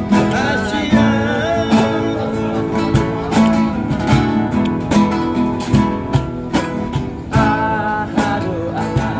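Acoustic guitar strummed in a steady rhythm with a man singing over it: a street busker's song.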